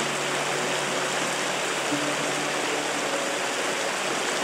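Shallow rocky river rushing over stones: a steady, even rush of water.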